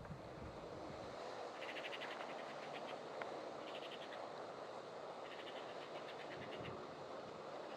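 Three bursts of rapid rattling calls from a small animal over a steady rushing background.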